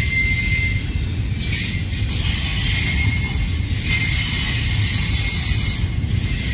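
Freight cars of a rail equipment train (flatcars carrying track machines, then boxcars) rolling steadily past, a continuous low rumble of wheels on rail with a thin high-pitched wheel squeal over it.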